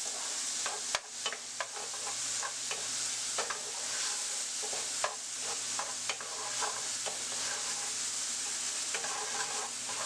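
Chopped tomatoes and garlic sizzling in a hot pan as they cook down, with irregular scrapes and clicks of the pan being stirred.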